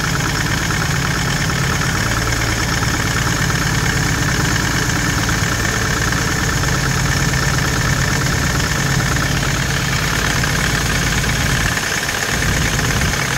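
Ford Transit Mk7 2.4-litre diesel engine idling steadily close up in the engine bay, with a fast, even diesel clatter, running on its newly fitted brake vacuum pump.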